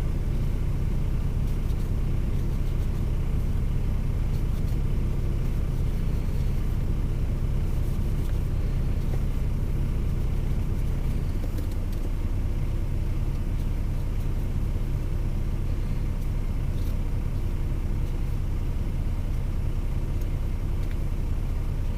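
DAF XF lorry's diesel engine idling steadily, a low even rumble heard inside the cab, with a few faint clicks.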